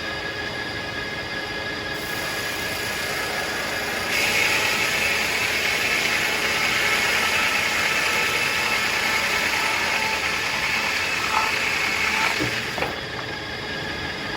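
Circular sawmill running, its blade spinning with a steady whine. About four seconds in it gets louder and harsher as the blade works through a tulip poplar log, and it drops back a little before the end.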